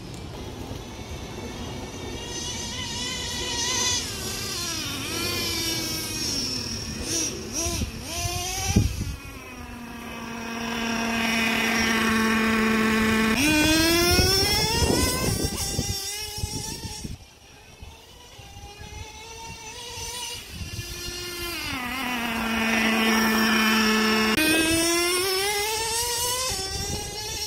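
Traxxas Revo 3.3 nitro RC truggy's small two-stroke glow engine running at high revs, its pitch rising and falling as the truck drives around. Twice it drops to a steady idle for a few seconds and then revs up sharply as the truck accelerates away.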